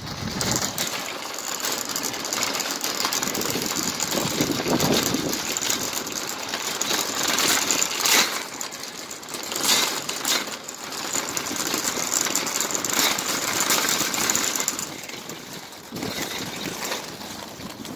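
Wire shopping cart rolling over rough asphalt, its wheels and metal basket rattling continuously.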